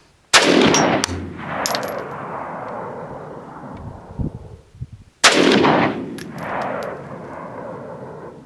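Saiga 308 semi-automatic rifle in .308 Winchester firing two single shots about five seconds apart, each followed by an echo that fades over about two seconds. A few light metallic clinks follow the first shot.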